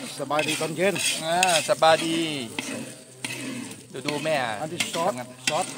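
A metal ladle stirring and scraping egg frying in a wok, with sizzling.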